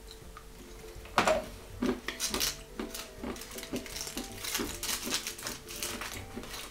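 Foil wrapper of a dark chocolate bar crinkling and crackling in the hands, a quick run of short crackles starting about a second in.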